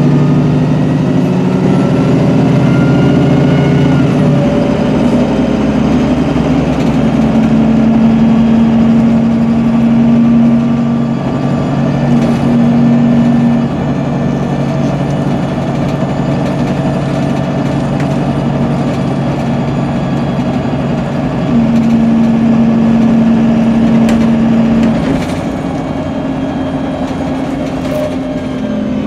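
Cummins-engined MAN 18.240LF single-deck bus with a Voith four-speed automatic gearbox, heard from inside the saloon while under way: a steady diesel drone with a pitched whine that comes and goes, once for several seconds, briefly, and again near the end.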